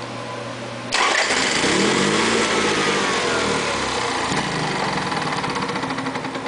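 Honda EV6010 generator engine cranking and catching about a second in, then running unevenly as its speed sags and the sound fades toward the end. It is trying to start and stay running, the no-start fault being chased.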